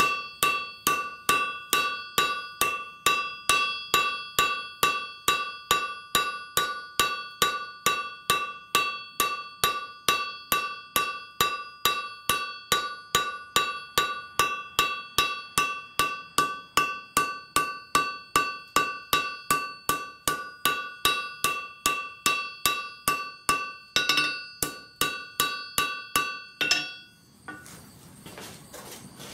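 Hand hammer forging a hot file into a flint striker on an anvil: steady blows, about two to three a second, each with the anvil's bright ring. There is a brief pause near the end, then a couple more blows before the hammering stops.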